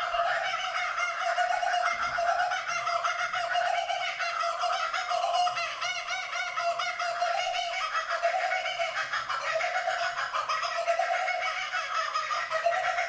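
Two laughing kookaburras calling together in their laughing chorus: a long unbroken run of rapid, repeated chuckling notes that rise and fall. It is loud throughout.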